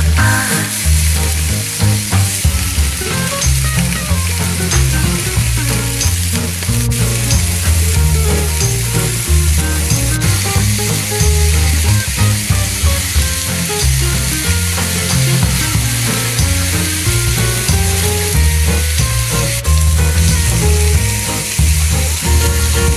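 Chicken and vegetable skewers sizzling on a hot ridged grill pan, a steady dense hiss of frying juices. Background music with a repeating bass line runs underneath.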